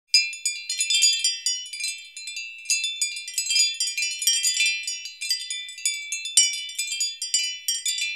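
Channel intro jingle of rapid, high tinkling chime notes in a dense, wind-chime-like shimmer, with no low notes under it.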